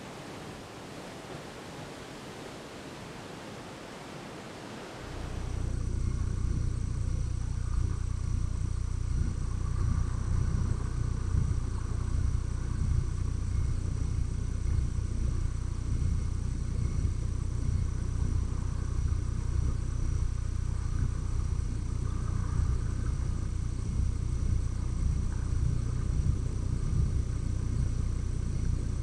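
Soft, even hiss of surf along a rocky shore. About five seconds in it gives way to a louder, steady low rumble with faint, steady high tones above it.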